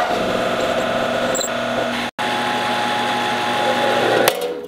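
Eastwood mini lathe running under cut as a parting tool plunges into a spinning steel bolt blank, a steady machine whine with cutting noise. The sound cuts out for an instant about two seconds in, grows louder toward the end, then stops sharply and dies away as the lathe spins down.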